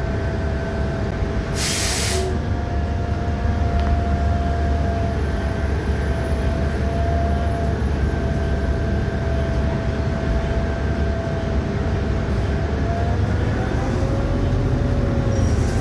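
Interior running noise of a 2018 New Flyer XDE60 diesel-electric hybrid articulated bus (Cummins ISL9 engine, Allison hybrid drive): a steady low rumble with a steady whine that rises in pitch near the end. A short hiss sounds about two seconds in.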